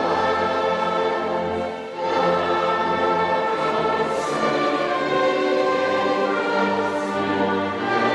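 Orchestra playing sustained chords in a live concert recording, with a brief dip in loudness about two seconds in.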